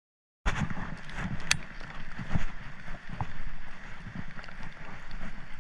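Silence, then about half a second in, wind noise on the microphone begins, with irregular low thumps and rustling from someone walking with the camera along a grassy, muddy bank. A sharp click stands out about a second and a half in.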